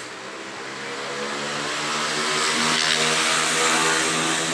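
A motor vehicle driving past, its engine growing louder toward a peak about three to four seconds in and then starting to fade, its pitch stepping up and down.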